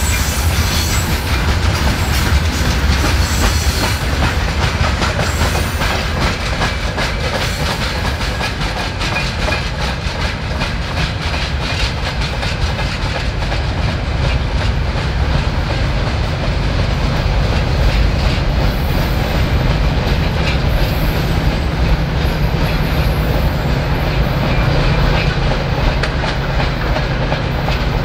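Freight train wagons and hopper cars rolling past, steel wheels clicking steadily over the rail joints over a continuous low rumble.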